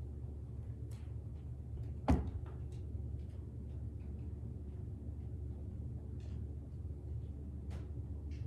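Steady low hum of room tone with one sharp knock about two seconds in and a few faint ticks scattered through.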